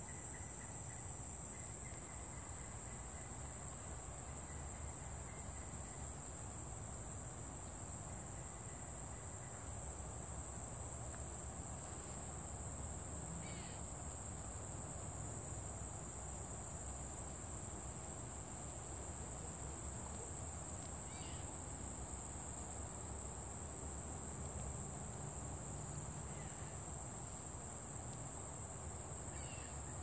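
Insects give a steady, unbroken high-pitched buzz. A bird gives a few short, faint calls in the second half.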